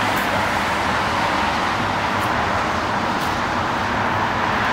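Steady rushing outdoor background noise at an even level, with a few faint clicks.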